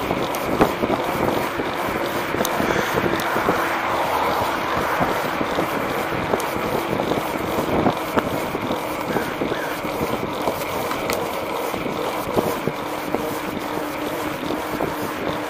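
Wind rushing over the microphone of a camera mounted on a moving bicycle, mixed with the tyre rolling on pavement. A few short sharp clicks or rattles stand out.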